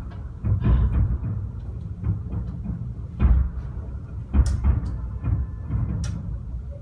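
Fireworks bursting overhead: a run of deep booms at irregular intervals, several with sharp cracks, over a continuous rumble from the barrage.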